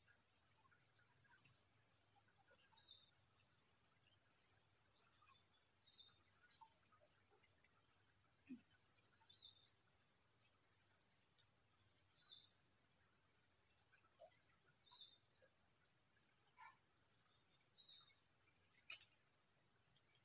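Steady, high-pitched insect chorus, unbroken throughout, with faint short two-note chirps recurring every few seconds.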